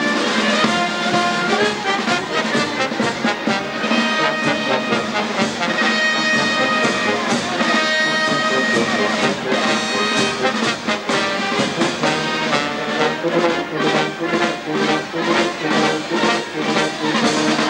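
Brass band playing, several instruments together, with a steady beat in the second half.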